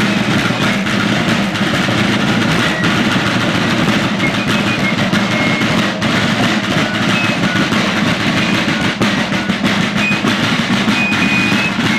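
Rope-tensioned Civil War field drum (snare drum) played in continuous rapid strokes and rolls, with no pause.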